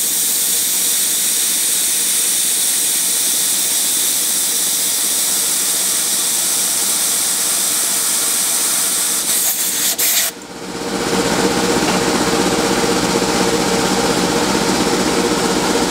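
CNC milling machine cutting a cam groove in a brass disk with a 1/16-inch end mill, under a loud, steady hiss from the air nozzle blowing on the cut. About ten seconds in the hiss cuts off abruptly, leaving the mill running with a steady hum as the cutter lifts clear of the finished groove.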